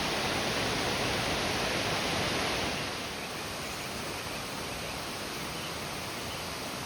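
Steady rush of flowing water, a river or waterfall, which drops a little in level about three seconds in.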